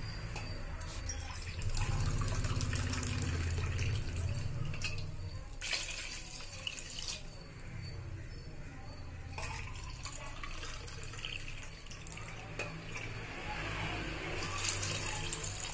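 Water poured from a cup into a pot of soaked basmati rice and chicken masala: the cooking water for the biryani rice.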